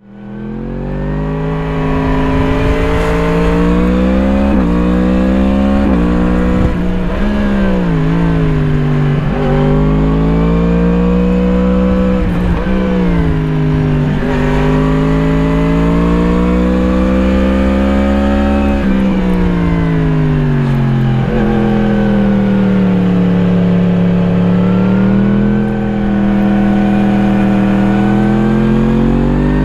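Yamaha MT-10's crossplane inline-four engine through an Akrapovič slip-on exhaust, heard onboard while riding. The engine note climbs under throttle and falls away again many times, with several sudden drops in pitch, after fading in during the first second.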